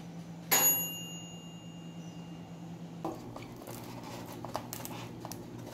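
A sharp metallic clink with a high ringing tone that fades over a second or so, about half a second in. From about three seconds, a run of small crackles and snaps as the crisp crust of a baked polvilho (cassava-starch) biscuit is torn apart by hand.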